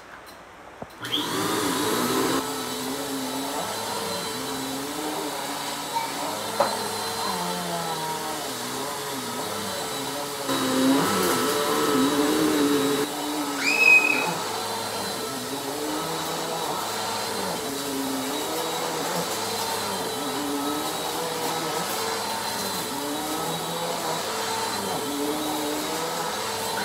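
Bissell PowerForce Compact vacuum cleaner switching on about a second in and running as it is pushed back and forth over a shag rug, its motor pitch wavering up and down. There is a brief high squeak about halfway through.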